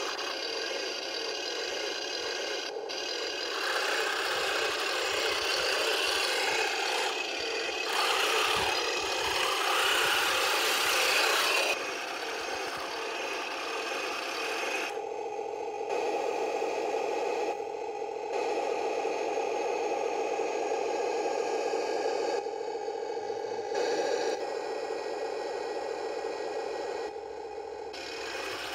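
Heng Long 1:16 RC M26 Pershing tank running, its plastic tracks and small gear motors rattling and scraping over gravel. The sound shifts abruptly several times from shot to shot.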